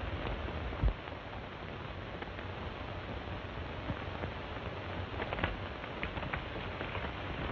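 Steady hiss and crackle of an old 1930s film soundtrack, with a low thump about a second in and a few faint clicks later on.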